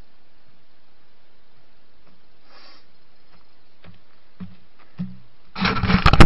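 Trail camera's microphone hiss with a few soft footsteps drawing close, then from about five and a half seconds in, loud crackling and scraping as a hand grabs and handles the camera right at its microphone.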